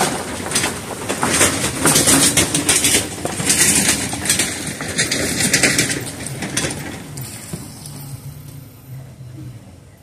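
A 2004 Suzuki Forenza towing an empty steel utility trailer over rough ground, the trailer rattling with many short clatters over the car's running. The rattling dies away about seven seconds in, leaving the four-cylinder engine idling low.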